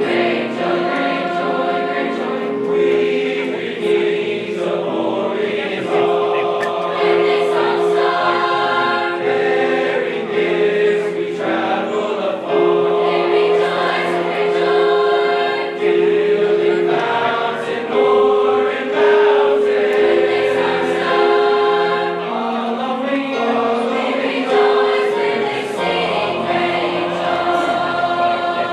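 A high school choir singing a Christmas song together, in long held notes over several voice parts, with a breath between phrases every few seconds.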